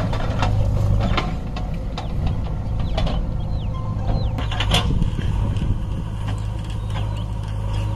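Diesel engines of a JCB 3DX backhoe loader and a John Deere tractor running steadily as the loader works, with a few sharp knocks in the first half.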